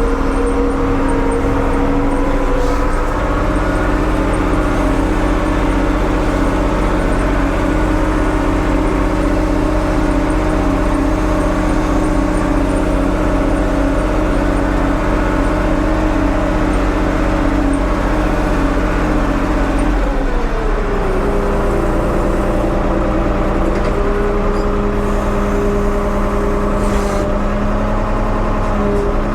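Ford 550 backhoe engine running steadily; about twenty seconds in its pitch drops and then holds lower.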